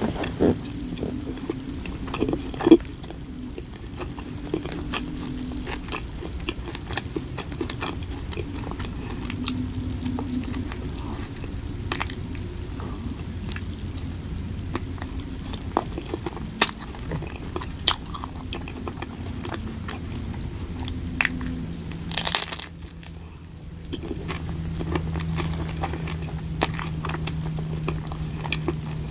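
Close-up eating sounds: a person biting and chewing, with many short crunchy clicks and mouth noises over a steady low hum. There is a brief louder hiss about 22 seconds in.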